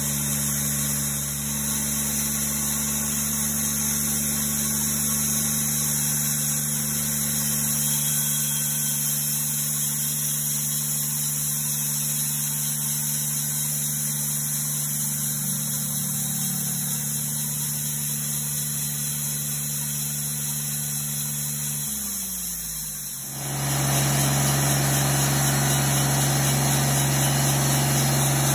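Portable bandsaw mill's engine running at a steady speed while the blade saws through a large ash log. About 22 seconds in, the engine's pitch falls away. Then a second mill's engine is heard running, a little louder and with more hiss.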